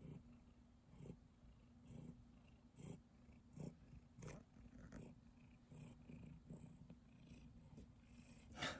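Domestic cat purring faintly while being stroked, its purr swelling in soft pulses roughly once a second with each breath. There is a short louder noise near the end.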